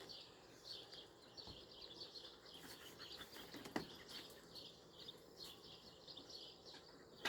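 Birds chirping in quick repeated phrases, with one sharp click or knock a little under four seconds in.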